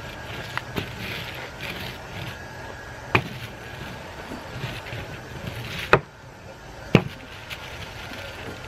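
Aluminium mylar sheet crinkling as it is rolled and pressed flat onto a board, with a few sharp knocks, the loudest about six and seven seconds in.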